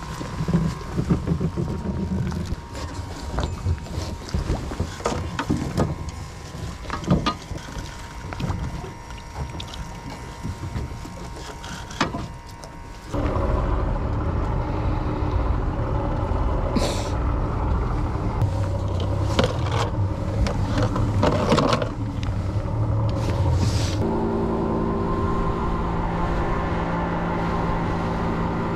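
Clicks and knocks of a mooring rope being handled and coiled on a boat's deck. About thirteen seconds in, this gives way to a small boat's two-stroke outboard motor running steadily. Its note steps up about ten seconds later as the boat gets under way.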